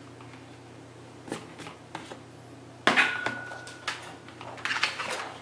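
Plastic knocks and clatter of a computer keyboard being picked up, moved and set down on a desk, with the loudest clatter about three seconds in and more knocks and rustling near the end.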